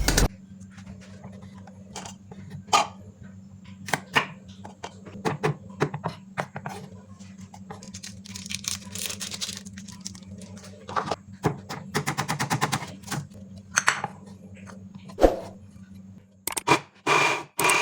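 Food-preparation handling sounds: scattered knocks and clatter of utensils over a steady low hum, a short hiss partway through, and a quick run of even taps about two-thirds of the way in.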